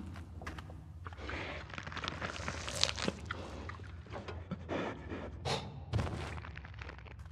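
Cave ambience in a film soundtrack: a steady low rumble with scattered crunches, rustles and thuds. A rising wash of noise builds about a second in, and the sharpest cracks come near three seconds and again near six seconds.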